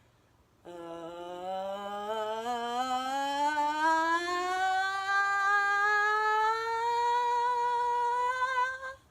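A person's voice holding one long vocal tone that glides slowly upward from a low to a high pitch over about eight seconds, cutting off near the end. It is a sound-release exercise, going from low voice to high voice.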